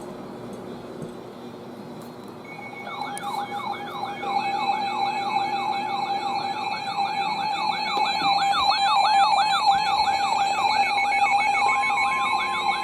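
Weather alert radio sounding its siren alarm for a newly received warning. The rapid warbling siren comes in about three seconds in and sweeps up and down about three times a second over a steady tone.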